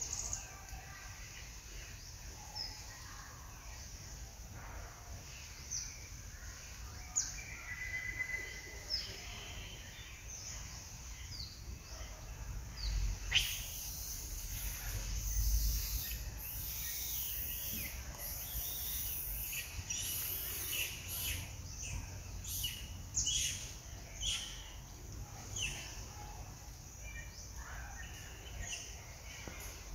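Birds chirping in the surrounding trees: many short, high chirps and quick falling notes scattered throughout, over a low rumble. A shrill high hiss comes and goes from about thirteen seconds in.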